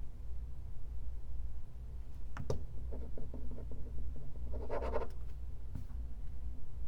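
Low steady rumble of a car interior while driving, with a few sharp clicks about two and a half seconds in and a brief scratching sound about five seconds in.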